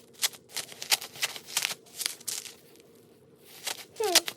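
Paper and plastic album contents rustling and flicking as they are handled, in a string of short, crisp, irregular strokes. A brief falling vocal sound comes near the end.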